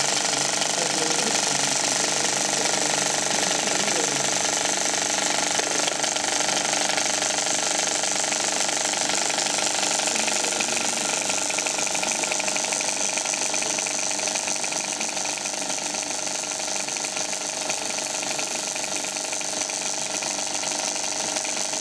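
35mm cinema film projector running, a steady mechanical clatter and whirr from its film transport, easing slightly quieter about halfway through.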